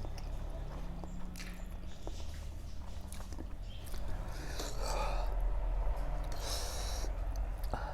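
Close-miked eating of spicy noodles: wet chewing with scattered small mouth clicks, and two louder breathy hisses, one about halfway through and one near the end.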